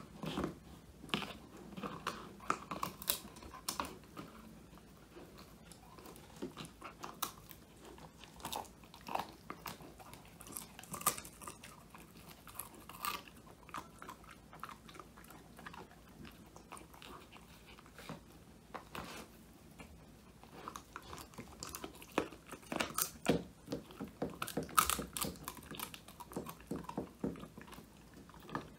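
Old English Sheepdog puppy crunching and chomping on a whole quail treat, irregular crisp bites and wet chewing that come thicker near the end.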